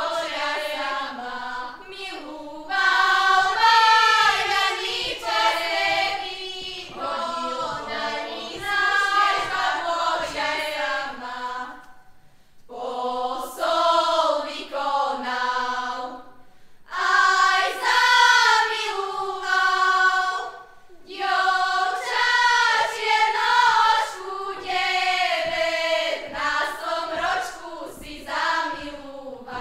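Women's folk choir singing a Slovak folk song together, in sung phrases broken by short pauses for breath.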